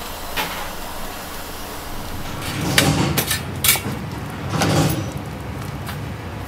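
Handling noises: rubbing and a few sharp knocks as a whole duck carcass and a cloth are moved about on a plastic cutting board, in two swells with clicks between, over a steady kitchen background hum.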